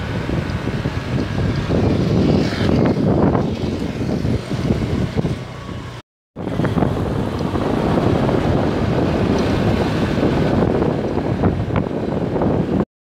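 Road and engine noise from a moving vehicle, with wind buffeting the microphone. It cuts out to silence twice, briefly about six seconds in and again near the end.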